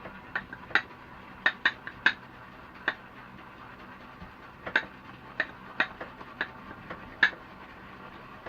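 Shaving brush whipping shaving cream into lather in a bowl: a steady wet swishing with irregular sharp clinks as the brush knocks against the bowl. The swishing stops near the end.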